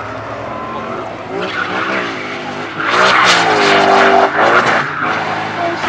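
Drift car sliding sideways on full lock, its engine revving up and down while the rear tyres squeal and hiss. The tyre noise and engine swell to their loudest from about three to four and a half seconds in.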